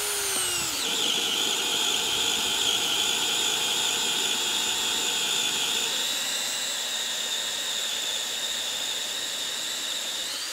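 Craftsman brushless hammer drill in drill mode on speed one, driving a 1.5-inch spade bit into a wooden beam. The motor's whine drops in pitch about half a second in as the bit bites, and it runs steadily under heavy load. Near the end it speeds back up as the load comes off.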